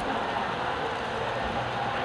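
HO scale model freight cars rolling past on the track, a steady rolling noise from their wheels on the rails.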